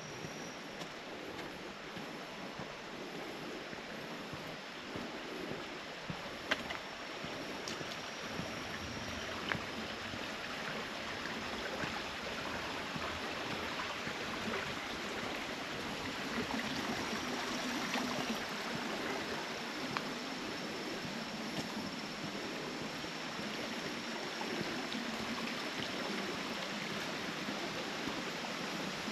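Clear mountain stream rushing and babbling over rocks, a steady wash of water that swells slightly. A couple of sharp clicks stand out in the first third.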